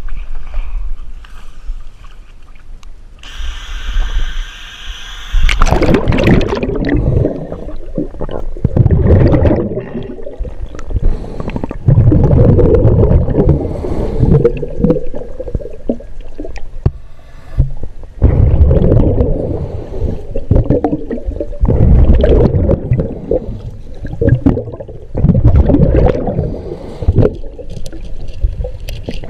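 Scuba diver's regulator breathing, heard underwater through a head-mounted GoPro: loud bubbling gurgles of exhaled air every few seconds, with a hiss about three seconds in.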